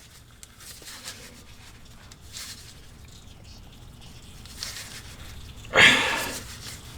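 Faint scraping and clicking of an oil filter being unscrewed by hand from underneath the engine. About six seconds in comes one loud breathy huff of effort.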